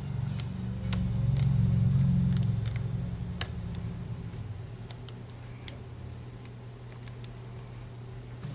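Sharp metallic clicks and ticks of a lock pick working the pins of a Burg padlock under tension, scattered irregularly. A steady low hum sits underneath and swells louder between about one and three seconds in.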